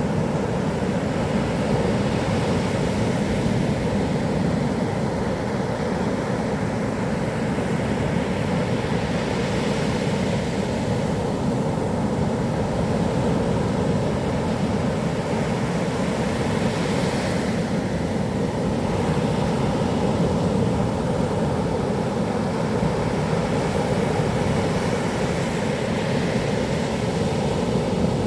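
Heavy surf from typhoon swell breaking on a beach: a steady low rush of water, with hissing surges as waves break every several seconds.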